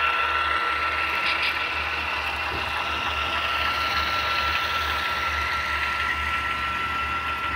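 Model train diesel locomotives rolling past close by on layout track: a steady mechanical whir with a low pulsing hum from their motors and gears, and wheels running over the rails, with a couple of light clicks about a second and a half in.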